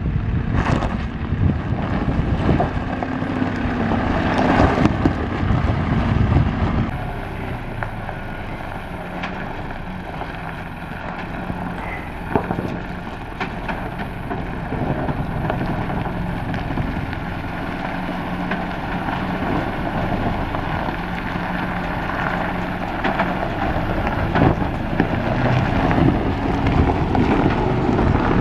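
Wind buffeting the microphone over a ute's engine as a Ford Ranger PX crawls along a rutted dirt track. About seven seconds in it changes to the steady, low engine note of an Isuzu NPS 75-155 4x4 truck's four-cylinder turbo-diesel, crawling slowly over ruts.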